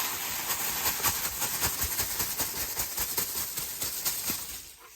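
Plastic bag crinkling and rustling steadily as a boxed device is unwrapped, dying away just before the end.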